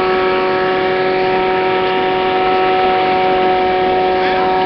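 Truck-mounted vacuum extraction unit running: a steady machine drone with a constant pitched hum that never changes.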